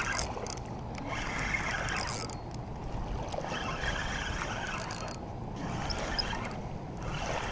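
Spinning reel being cranked to retrieve line with a small fish on, its handle and gears turning over a steady rushing noise.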